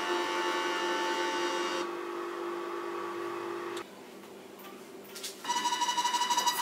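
Small DVD-drive stepper motors of a homemade pen plotter running, giving a steady whine made of several high tones as they move the pen. The sound drops about two seconds in and goes almost quiet a little past halfway. Near the end it starts again with rapid, even stepping pulses under a steady whine.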